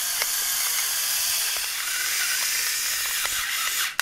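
Electric salt and pepper grinders running over a bowl, a steady hissing whir of the small motors grinding salt and peppercorns. The sound breaks off briefly near the end and then starts again.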